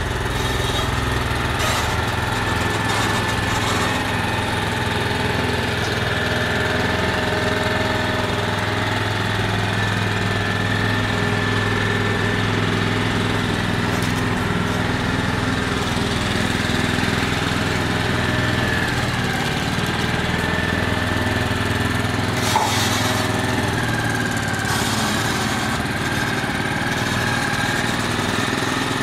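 Engine of a heavy road transporter running steadily as it moves at a crawl: a low, even drone with a faint steady high whine over it. A single sharp click comes late on.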